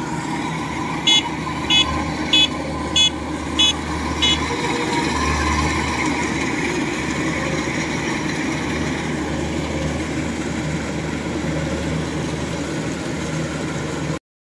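Kubota DC-93 rice combine harvester's diesel engine running steadily under load as it drives and cuts rice. Six short high electronic beeps come about every 0.6 s in the first few seconds. The sound drops out briefly near the end.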